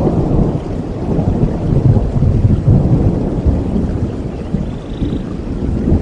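A long rumble of thunder over steady tropical rain, swelling in the first couple of seconds and slowly easing off.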